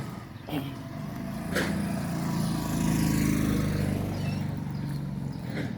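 A motor vehicle's engine passing close by, building up, loudest about three seconds in, then fading away. A few sharp clicks come along the way.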